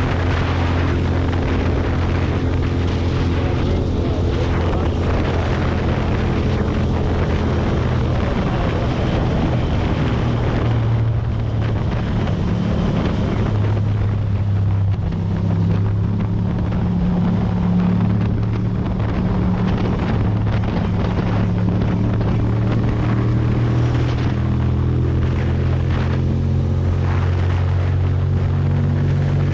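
Ducati Monster's V-twin engine running steadily at cruising speed, heard from the rider's position with wind rushing over the microphone; the engine note drops and settles at a new pitch about eight to twelve seconds in.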